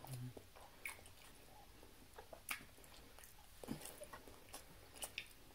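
Faint chewing of soft lasagna: scattered wet mouth clicks and smacks.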